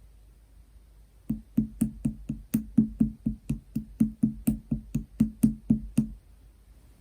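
Slime being squished and pressed by hand, giving a steady run of about twenty crisp, hollow air-bubble pops, roughly four a second, starting just over a second in and stopping about six seconds in.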